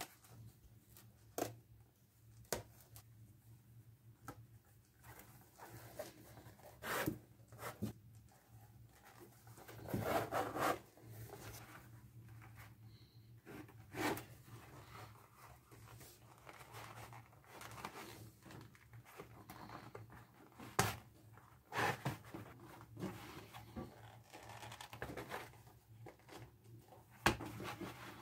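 Hands handling and lacing leather by hand: rustling and rubbing of leather as the pieces are worked and laces are pulled through, with scattered sharp clicks and knocks on the workbench.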